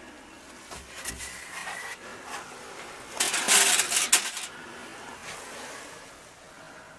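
Handling noises: light rustling and clattering, with a louder burst of crackling rustle about three to four and a half seconds in.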